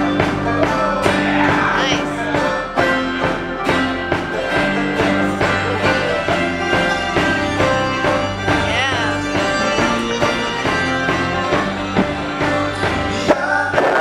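Live band music led by a five-string banjo in sawmill tuning, played with a steady beat, with drums and a fiddle behind it and a man singing.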